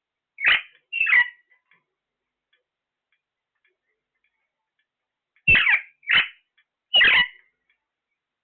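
Parrot calling: two short squawks, then about five seconds later three more in quick succession.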